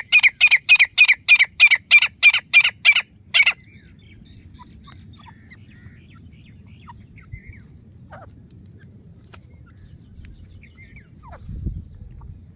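Grey francolin (teetar) calling: a fast series of loud, harsh repeated notes, about four a second, that stops about three and a half seconds in. Faint scattered chirps follow.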